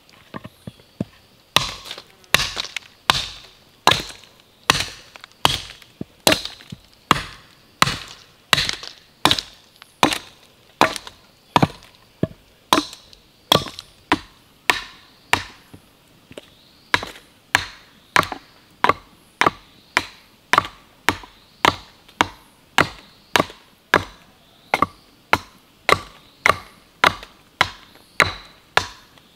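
Hatchet chopping into a block of wood set on a log chopping block, roughing out a wooden utensil: a steady run of sharp chops, about one and a half a second.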